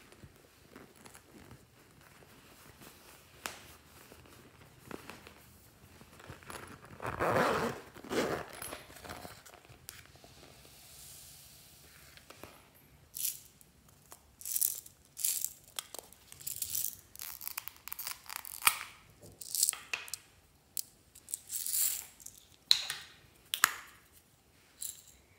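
Slime mix-ins being poured from plastic packets into a glass dish, with plastic packaging crinkling and small containers clicking open. One longer pouring rush comes early, then a quick run of sharp clicks and crinkles through the second half.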